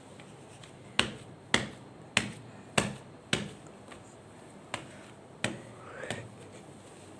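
A series of sharp snaps: five about half a second apart, then, after a short pause, two more and a softer burst near the end.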